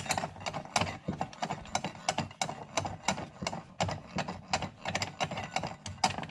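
Rapid, irregular clicking as the mounting knob is unscrewed from a wind deflector's bracket, several clicks a second.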